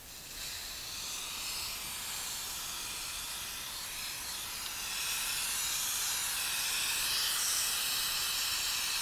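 Aerosol can of Motul C1 chain cleaner spraying continuously onto a motorcycle drive chain: a steady hiss that grows a little louder about five seconds in.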